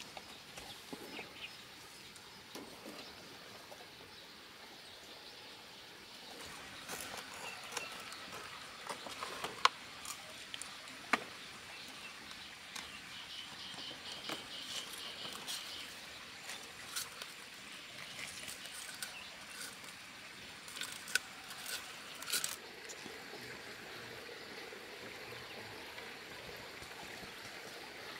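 Quiet rural outdoor ambience with faint bird calls. Scattered small clicks and rustles come from fish being handled and tied with strips of leaf, clustering in the middle of the stretch.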